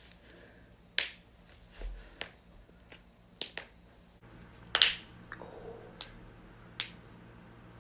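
Joints cracking: a run of sharp pops and clicks at irregular intervals, the loudest a quick cluster about five seconds in.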